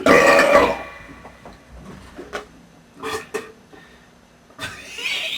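A person belching loudly for just under a second right at the start, followed by only faint sounds.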